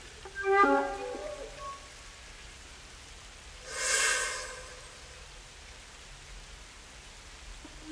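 Solo flute in a contemporary piece: a quick flurry of short notes about half a second in, then a breathy, airy tone a few seconds later, with silent pauses in between.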